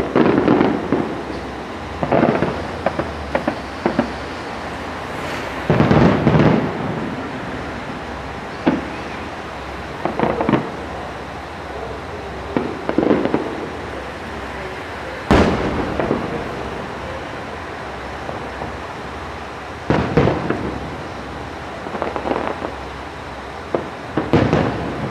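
Aerial fireworks shells bursting: about a dozen booms and crackles at irregular intervals, a second to several seconds apart. The sharpest single bang comes about halfway through.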